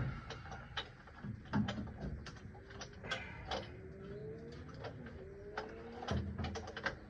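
Scattered sharp clicks and knocks, like hand tools and a socket extension being handled on metal. Midway come three slow rising tones, each about a second long.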